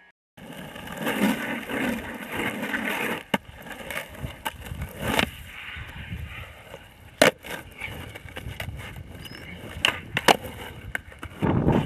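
Skateboard wheels rolling over hard ground, broken by sharp clacks of the board being popped and landing, about five times, the loudest a little past halfway. Near the end two clacks come close together as a flip trick is popped and landed.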